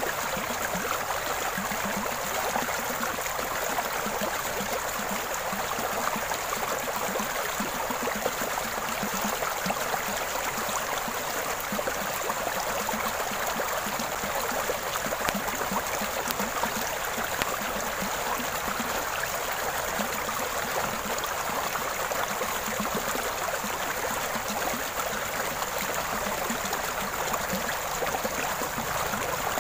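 Fast, shallow stream water rushing steadily over stones, a constant even hiss of flowing water.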